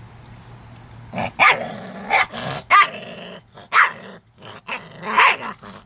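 Seven-week-old Renascence Bulldogge puppy growling and snarling in about five short outbursts, starting about a second in. It is guarding its raw chicken wing from the hand petting it: puppy food aggression.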